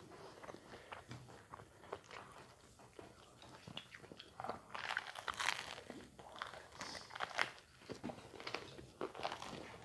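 Crunchy food being bitten and chewed: irregular crackling crunches, loudest about halfway through and again a couple of seconds later.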